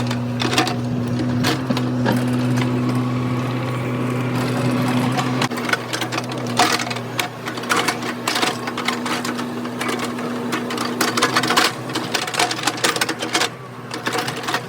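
Mini excavator's diesel engine running under load with scraping and clanking from the bucket and tracks working the ground. The engine note drops about five and a half seconds in.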